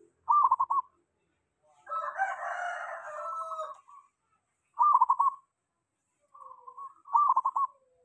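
Caged zebra dove (perkutut) singing: three short phrases of quick rolling coo notes, about a second in, near five seconds and near the end. Between them a longer, quieter call of about two seconds, a rooster crowing.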